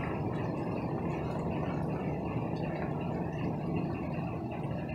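Steady rain falling, a continuous even rush without distinct drops or breaks.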